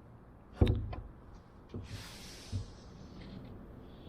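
Plywood aircraft parts being handled and fitted together: one sharp knock about half a second in, a few lighter taps after it, and a brief scraping rustle around the middle.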